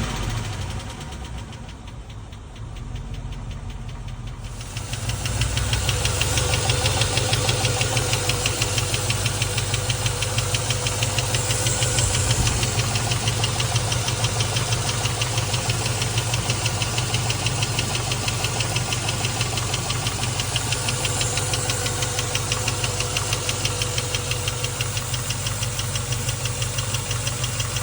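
Land Rover Discovery 1's 4.0-litre V8 running steadily with a fast, regular ticking from the top end, louder from about five seconds in. The owner cannot tell whether it is lifter tick, a rocker noise or a knock.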